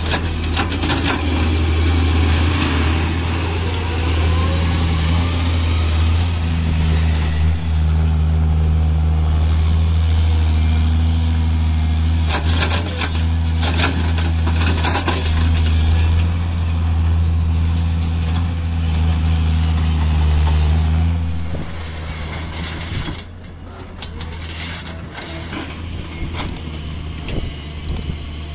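Tata Hitachi EX130 crawler excavator's diesel engine running steadily at working revs, with rattles of soil and stones spilling from the bucket. About two-thirds of the way through, the engine sound drops and becomes quieter.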